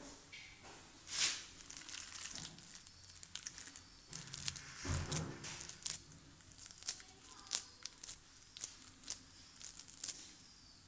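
A hand squeezing and kneading raw minced chicken necks in a metal bowl: irregular wet squelches and crackles, with scattered sharp clicks and a few louder ones.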